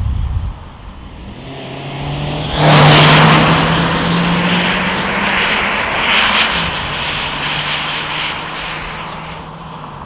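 Small car's four-cylinder engine accelerating hard at full throttle. It gets suddenly louder at the launch about two and a half seconds in, its pitch climbs slowly, then drops near the middle as the six-speed automatic upshifts, and it keeps pulling.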